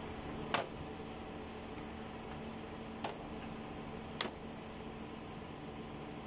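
Metal hand tools (sockets and extensions) clinking against each other and the car's bodywork: three sharp clinks spread over the first four seconds, over a steady low hum.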